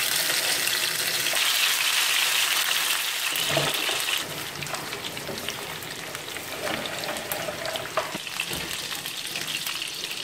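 Duck wing pieces sizzling in hot cooking oil in a frying pan. The sizzle is loudest for the first four seconds, then drops to a quieter frying with scattered pops.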